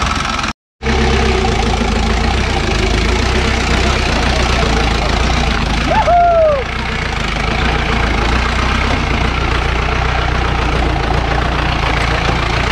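Off-road jeep's engine running steadily while climbing a rough hill track. The sound drops out for a moment just after the start, and a short squeal rises and falls about six seconds in.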